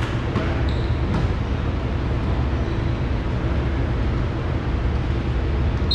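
Steady low rumble of a large gymnasium's background noise between rallies, with a short faint whistle about a second in. A referee's whistle starts sharply at the very end.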